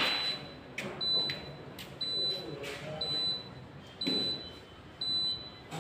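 Dishwasher beeping: a high, steady beep repeating about once a second, each beep lasting about half a second, with a few light knocks and faint voices under it.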